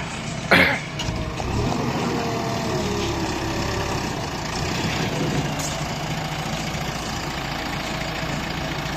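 JCB 3DX backhoe loader's diesel engine running, its pitch rising and falling slightly as it works. A short, loud, sharp sound cuts in about half a second in.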